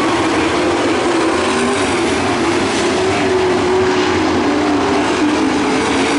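Pro stock dirt-track race cars' V8 engines running hard at speed, a loud, steady din whose pitch wavers up and down as the cars work through the turns.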